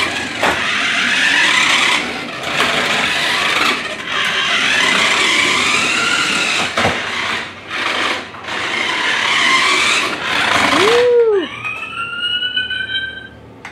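Small electric motor of a battery-powered toy car whirring, its pitch rising and falling as it speeds up and slows. About eleven seconds in it gives way to a few gliding tones.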